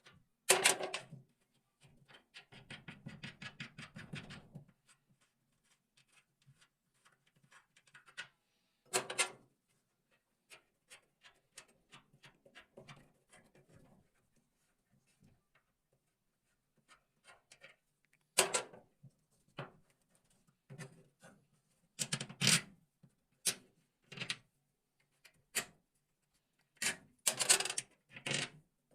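Hand work on a washing machine's motor rotor plate: scattered knocks and clicks of tools and metal parts being handled, with a quick run of rattling ticks about two to four seconds in.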